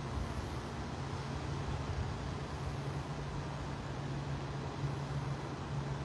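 Jet ski engines droning steadily, a constant low hum over a steady hiss.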